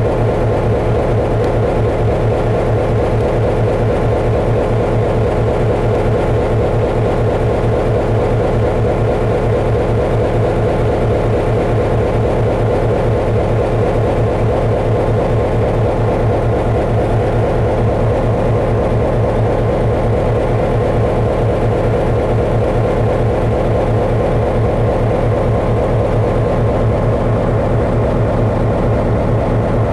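Steady heavy mechanical drone with a constant low hum and a mid-pitched tone above it. It does not change in level or pitch.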